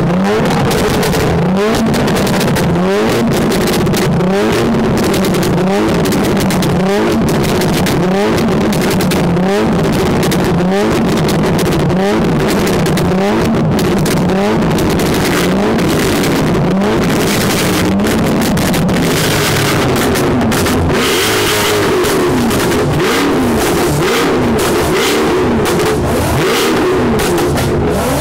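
Mercedes C63 AMG's V8 being revved while parked, blip after blip about once a second, the pitch shooting up and dropping back each time. In the last third the revs are held longer and come less regularly.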